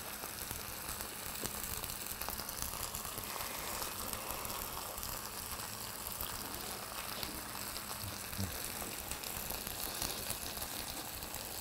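Grilled pork ribs sizzling steadily on a hot serving plate, a soft continuous hiss.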